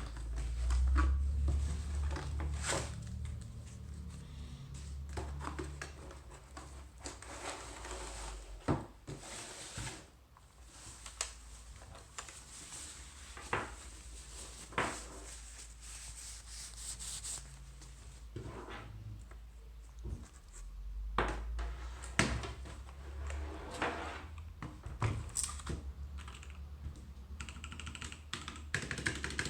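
Unboxing handling noise from a mechanical keyboard and its packaging: rubbing and scraping with scattered knocks and clicks.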